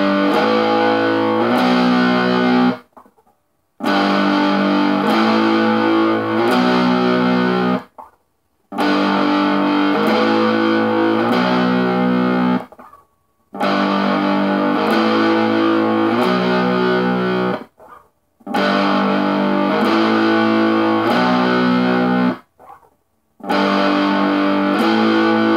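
Electric guitar in drop D tuning, a Squier Stratocaster, playing the same riff over and over. Each time a chord barred across the fifth fret slides up to the seventh and then the ninth fret, so three chords step up in pitch, followed by a short silent pause. The phrase comes round about every four and a half seconds.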